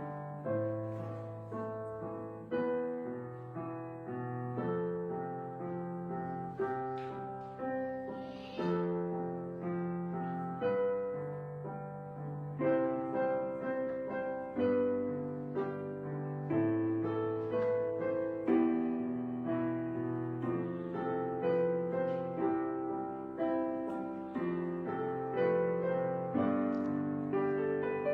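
Background solo piano music, a melody over sustained chords with notes struck and left to ring.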